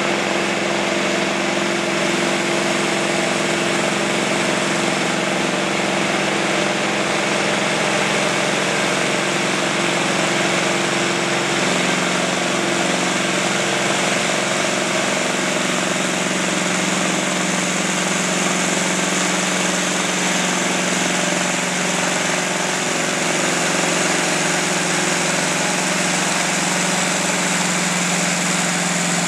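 Big farm tractor's diesel engine idling steadily, its pitch shifting slightly about twelve seconds in.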